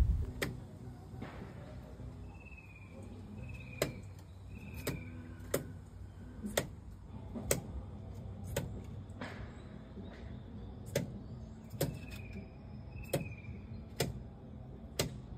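A series of sharp clicks or taps, about one a second at uneven spacing, over a low steady hum, with two short runs of quick high falling chirps, one a few seconds in and one near the end.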